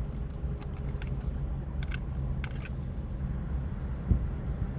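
Someone chewing a mouthful of food, with a few faint mouth clicks, over a steady low hum.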